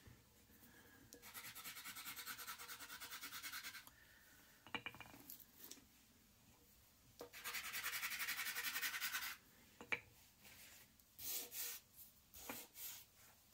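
Handmade earth-pigment drawing sticks (soft soil pastels) rubbed back and forth on paper in quick scribbling strokes, in two bursts of a couple of seconds each. A few light knocks come between and after them as the sticks are picked up and set down.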